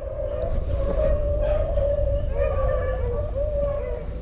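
Beagles baying on a rabbit chase: several dogs howl in a continuous, wavering chorus over a low rumble.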